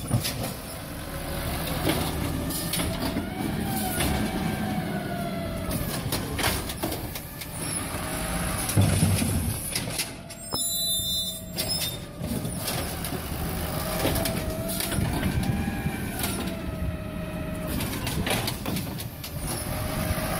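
Automated side-loader garbage truck working its mechanical arm: the diesel engine revs up and down with a whine that rises and falls several times as the hydraulic arm grabs, lifts and tips the plastic recycling bins, with scattered knocks.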